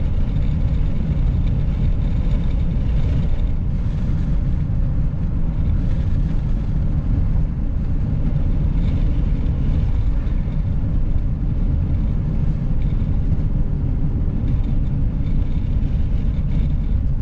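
Steady low rumble of road and engine noise heard inside a vehicle driving along a highway.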